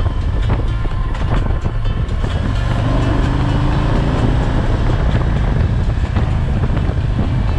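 Harley-Davidson Tri Glide Ultra trike's V-twin engine running steadily at road speed, heavy in the low end, mixed with wind and road noise.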